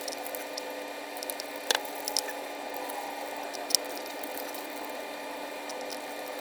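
Faint clicks and light ticks of small screws being started by hand into a laptop motherboard, over a steady low hum.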